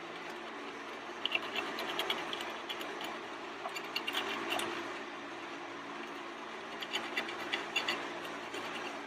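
Screwdriver tip scraping carbon buildup out of a Ford 6.0L diesel turbocharger, heard as clusters of short scratches and metal clicks: a few about a second in, more around four seconds in and again around seven to eight seconds in. A steady low hum sits underneath.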